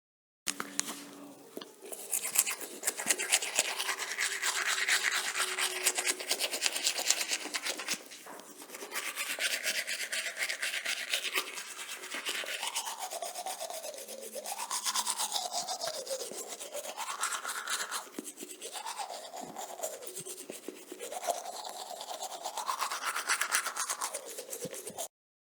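Rapid scrubbing strokes, like a brush worked back and forth. In the second half a hollow pitch rises and falls several times.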